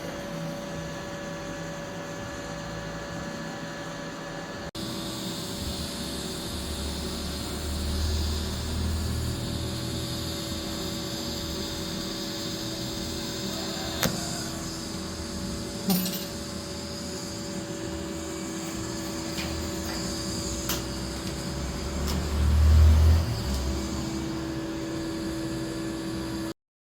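TIG welding in progress: a steady electrical hum and hiss from the welding arc and machine, with a few short clicks and two brief low rumbles.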